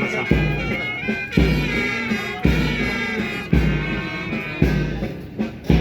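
Background music with a steady beat: a low bass hit about once a second under a melody.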